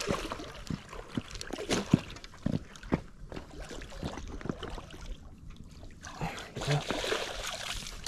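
Water splashing and sloshing as a small flathead catfish is scooped into a landing net, among scattered knocks and clicks of handled fishing gear. The splashing is heaviest near the end.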